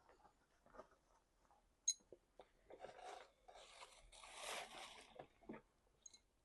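Faint handling noises: scattered light clicks, a sharp click about two seconds in, and a longer rustle or scrape around four to five seconds in.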